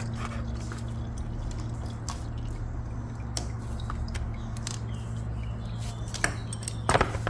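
Used engine oil dripping from a Suzuki V-Strom 650 XT's sump drain hole into a drain pan, over a steady low hum. A few sharp clicks come near the end.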